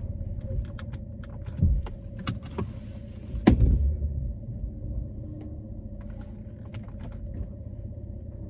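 Car cabin while driving: a steady low engine and road rumble, with scattered clicks and knocks in the first few seconds and the loudest knock about three and a half seconds in.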